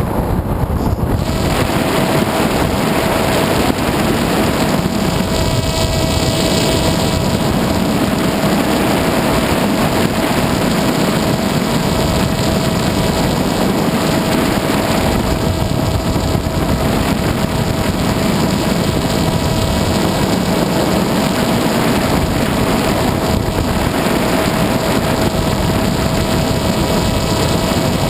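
Electric motor and propeller of an FPV aircraft running steadily in flight, with a constant motor whine over heavy wind rush on the onboard microphone.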